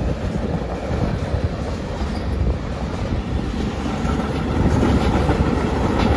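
Container and trailer freight train wagons rolling past, a steady rumble of wheels on the rails with irregular clatter.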